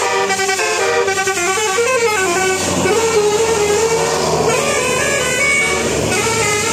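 Telolet musical bus horn playing a quick melody of stepped notes, with a longer held, wavering note in the middle before the quick notes return.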